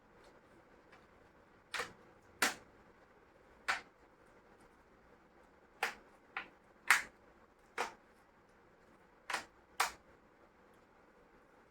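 About nine short, sharp clicks and taps, irregularly spaced, from hands working inside an opened laptop's case: the plastic and metal of its internal parts being handled during a RAM upgrade.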